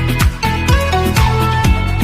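Background music with a steady beat, about two beats a second, under a melody.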